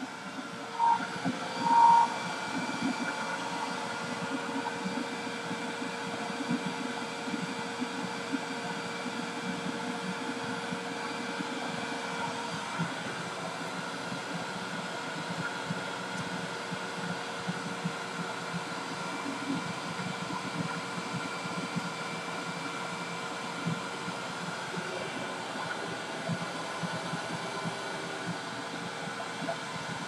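Vacuum cleaner running steadily, with two short high beeps about one and two seconds in.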